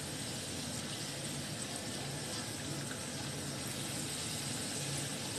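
Fuchka puris deep-frying in very hot oil: a steady sizzling hiss.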